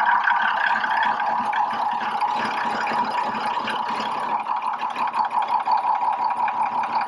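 Cummins ISC inline-six diesel just after starting, its speed easing down over the first couple of seconds and settling into a steady idle.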